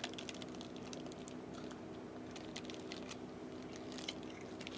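A quick, irregular run of small clicks and crackles over a steady low hum.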